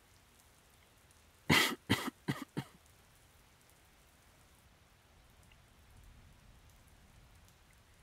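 A sick man coughing: a quick fit of four coughs about a second and a half in, which he calls a little baby cough. Faint steady rain underneath.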